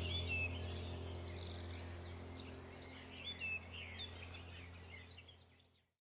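Relaxing background soundtrack of birdsong chirps and whistles over a low steady drone, fading out to silence shortly before the end.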